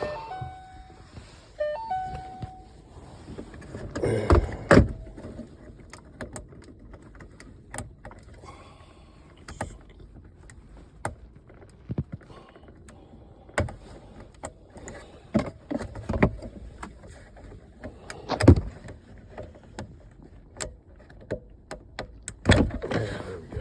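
Plastic interior console trim panels being pried, pulled loose and handled: irregular clicks, snaps, knocks and rattles, with a few louder clusters of knocks. A few short beeps sound near the start.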